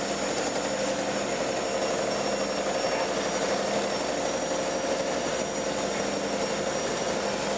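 JCB JS210 excavator's diesel engine running steadily, with a steady high whine on top.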